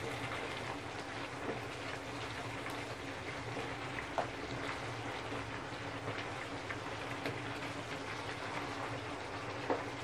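Chicken curry with yogurt sizzling and bubbling in a pan on the stove: a steady crackle over a low hum, with a couple of light clicks.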